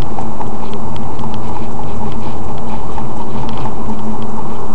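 A car driving, heard through a dash-mounted camera: a loud, steady drone of engine and tyres on the road, with a low hum and many small irregular clicks and rattles over it.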